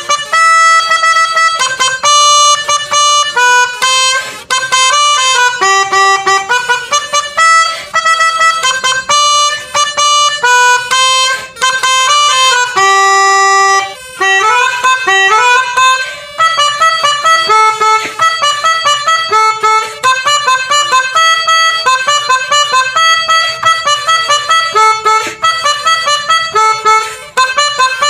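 Indonesian 'basuri' musical bus horn playing a telolet melody: a loud, reedy, fast run of horn notes with a few longer held notes and brief breaks between phrases.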